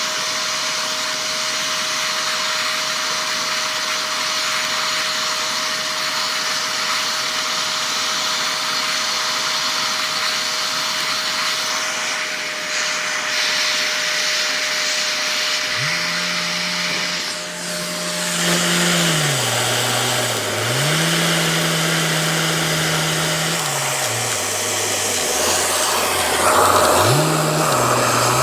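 Vacuum cleaner running loudly and steadily, with a thin steady whine over its rushing noise. About two-thirds of the way through, a lower droning tone comes in and shifts up and down in pitch while the whine fades.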